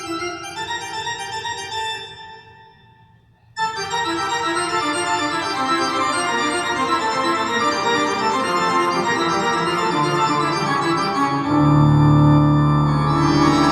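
Recorded keyboard music played back through a KT150 push-pull valve amplifier. One piece fades out about two seconds in, followed by a short pause; a new piece starts abruptly, and a strong, louder bass comes in near the end.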